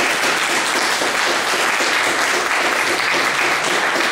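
Audience applauding, many hands clapping steadily at an even level throughout.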